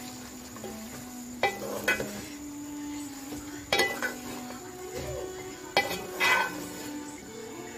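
A wooden spatula stirs sliced bitter gourd, onions and green chillies frying in oil in a metal pot. It scrapes along the pot and knocks sharply against its side several times.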